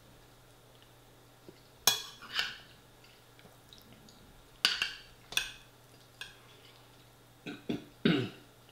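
Metal spoon clinking and scraping against a ceramic bowl while scooping up chilli and rice, in three clusters of short sharp clinks about every two to three seconds.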